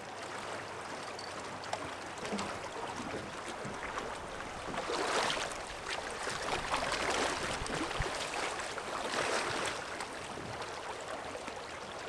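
River water rushing steadily over a shallow run, with louder splashing about five seconds in and again near nine to ten seconds as a hooked trout thrashes at the surface and is netted.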